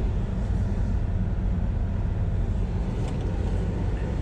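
Car engine and tyre noise heard from inside the cabin while driving: a steady low rumble.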